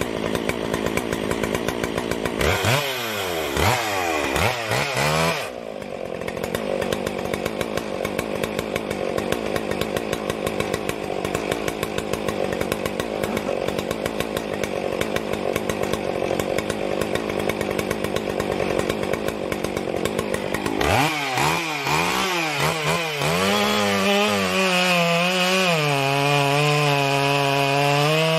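Jonsered 2077 two-stroke chainsaw idling with an even beat, blipped up and down several times about three seconds in and again about twenty seconds in. It is then held at full throttle cutting into a wooden log, its pitch wavering under load near the end.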